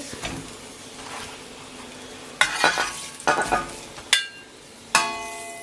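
Chicken sausages sizzling in hot oil in a frying pan, with a metal utensil knocking and clinking against the pan as they are lifted out; one strike near the end leaves the metal ringing.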